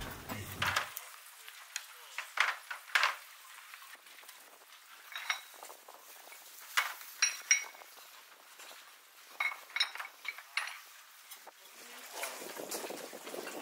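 Fired Hagi ware pottery clinking and knocking as pieces are handled and set down while the kiln is unloaded: a scattered series of sharp, briefly ringing clinks. A low murmur of voices rises near the end.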